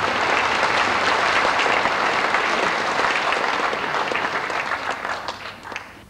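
Theatre audience applauding, the applause thinning to a few last claps and dying away near the end.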